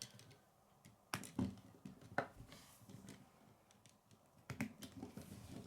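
K'nex plastic pieces being handled and snapped into place: a few scattered sharp plastic clicks, the clearest about a second in and again after four and a half seconds.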